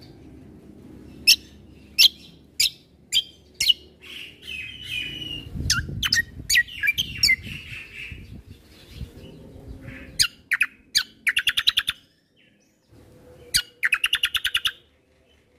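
Kecial kombo (cucak kombo) songbird singing: a string of sharp, falling whistled notes, then a warbling phrase, and twice a fast rattling trill of about ten notes.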